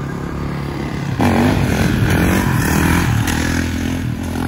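Dirt bike engine running, getting louder about a second in as it is revved, its pitch swinging up and down.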